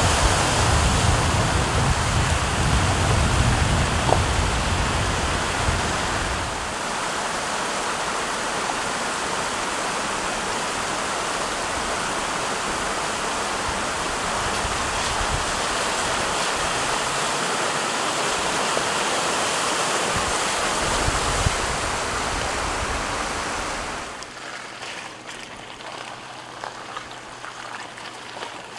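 Steady rushing of a creek's running water, with a low wind rumble on the microphone for the first six or so seconds. The sound drops noticeably quieter about 24 seconds in.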